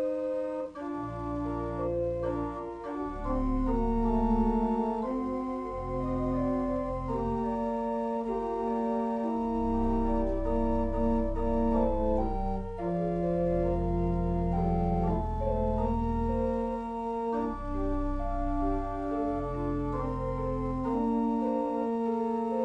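Organ playing a slow hymn prelude: held chords changing every second or two over a deep bass line.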